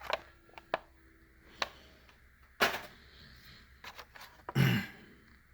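A few light clicks, then a short rustling burst and another soft burst: handling of blister-carded diecast toy cars as one is set down and the next picked up.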